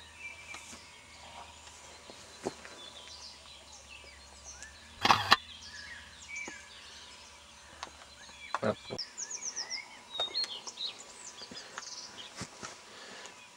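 Several birds chirping and singing, with a loud knock about five seconds in and a shorter one just before nine seconds in.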